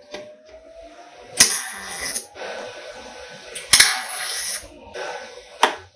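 MIG welder laying three short tack welds on steel plate, three separate bursts of arc sizzle, the first two lasting nearly a second each and the last brief.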